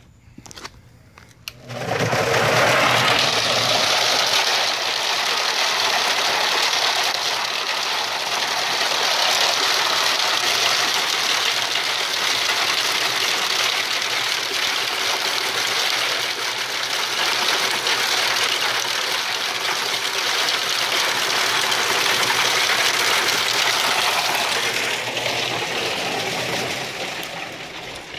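A homemade bean sheller starts up about two seconds in: an electric motor spins paddles inside a rotating wire-mesh drum, and dry butter beans and their pods clatter steadily against the paddles and mesh as they are shelled. The clatter tails off over the last few seconds as the machine is switched off.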